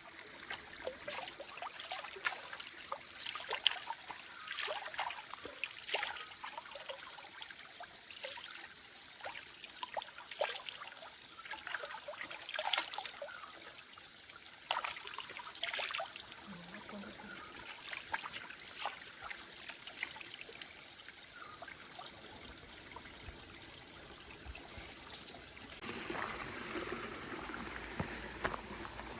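Water trickling in a small stream, with irregular splashy ticks. Near the end a steadier rushing sound comes in.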